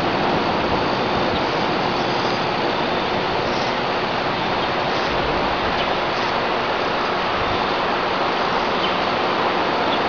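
Steady rushing of river water, an even hiss that does not change.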